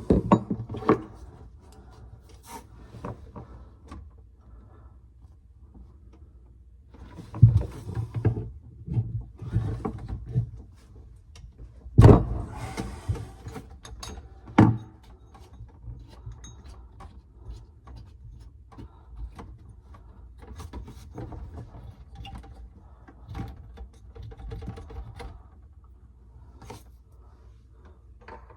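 Irregular knocks, clicks and clatter of tools and parts being handled, with louder knocks about seven and twelve seconds in.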